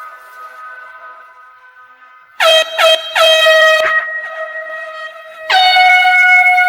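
Dancehall air horn sound effect: two short blasts and a longer one about two and a half seconds in, then a long held blast from about five and a half seconds on, each sliding down in pitch as it starts.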